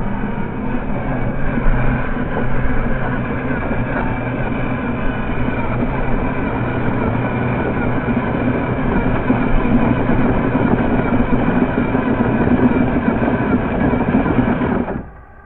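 A vehicle motor running steadily with a low hum and a rough, rattling edge, cutting off abruptly near the end.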